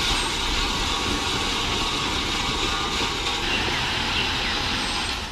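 Dump truck running while its dump body tips up and unloads gravel, a steady, even noise heaviest in the low end.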